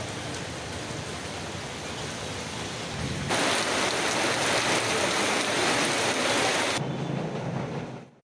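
Heavy rain pouring steadily. From about three seconds in to nearly seven seconds in it is louder, with rain drumming on a corrugated sheet roof. The sound fades out just before the end.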